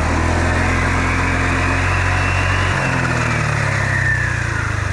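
Small motorbike engine running steadily just after being started, as the faulty bike is test-run; its pitch drops a little about three seconds in.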